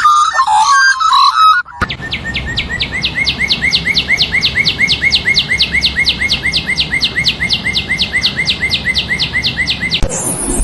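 Animal calls: a short burst of warbling chirps, then a rapid, even series of identical downward-sweeping chirps, about five a second, that stops abruptly near the end.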